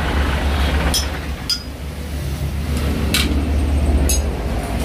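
Steel hand tools clinking against a Suzuki Jimny leaf spring while its rubber bushings are being worked on: four sharp metallic clinks at uneven intervals, over a steady low hum.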